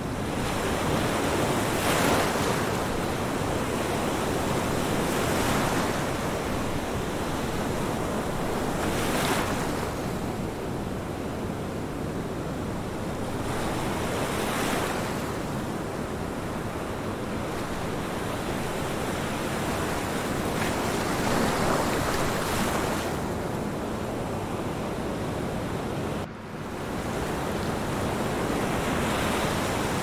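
Ocean surf: waves washing in and out in slow swells every few seconds, with a brief break in the sound near the end.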